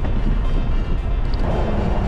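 Background music over a steady low rush of wind on the microphone of a road bike descending.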